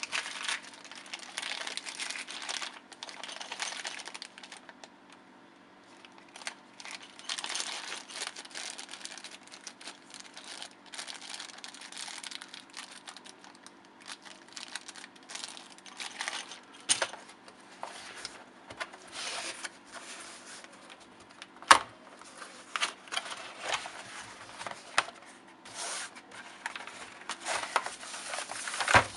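Plastic packaging being crinkled, rustled and torn in irregular bursts, with a few sharp knocks, the loudest about two-thirds of the way through. A faint steady hum runs underneath.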